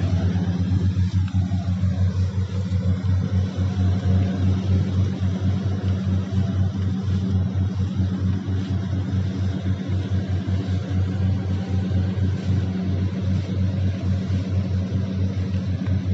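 Combine harvester's diesel engine running steadily under load, a constant low engine note with a fast even pulse.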